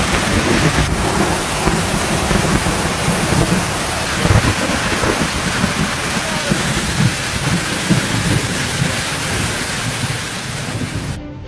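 Hailstorm: hailstones pelting down in a dense, loud hiss full of irregular thuds. It cuts off suddenly near the end, giving way to music.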